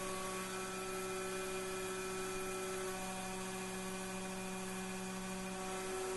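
Taig CNC mill running steadily as it mills a 6061 aluminum wrench blank: a steady hum made of several held tones over a faint hiss, the tones shifting slightly in pitch partway through.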